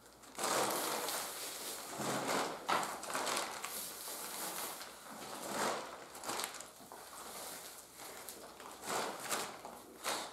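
Deer hide being pulled off a hanging carcass by hand: irregular tearing and rustling in surges as the hide peels away from the meat.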